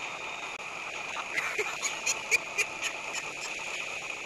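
Steady wind rush and hiss on the slingshot ride capsule's onboard camera, with five or six short sharp sounds in quick succession about one and a half to three seconds in.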